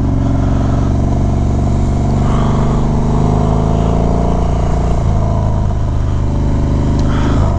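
Harley-Davidson Dyna V-twin engine under way, its note climbing gently as it pulls for about four seconds, then dropping back about five seconds in and holding steady. Wind and road noise run underneath.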